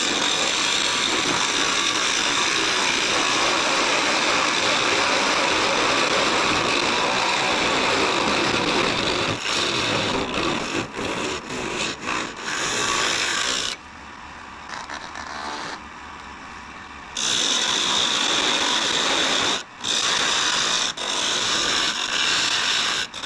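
A turning tool cutting into the end of a wood blank spinning on a lathe, a continuous rough shaving hiss as the turner shapes a dovetail tenon. About nine seconds in the cutting turns choppy, pauses for a few seconds near the middle, then resumes in short cuts.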